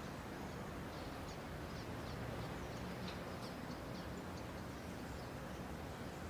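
Wild birds chirping: a quick run of short, high, downward-sliding chirps through the middle of the stretch, over steady background noise.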